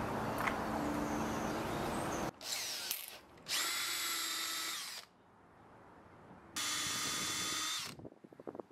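Power drill spinning a square wooden stick through a plane-blade dowel jig, the blade shaving it round. The drill runs in two steady bursts of about a second and a half each, starting about three and a half seconds in and again near seven seconds, after a steady noise through the first two seconds.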